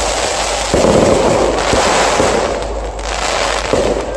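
Fireworks going off in a dense, continuous barrage, with sharper bangs about a second in and again near the end.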